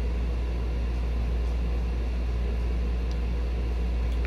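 A steady low hum with a hiss over it, holding an even level, with a few faint light ticks.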